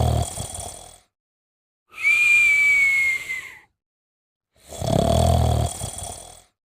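Sleep snoring alternating with a whistle. A rumbling snore fades out in the first second. A single clear whistle follows about two seconds in, lasts nearly two seconds and sinks slightly in pitch. Another rumbling snore comes near the end.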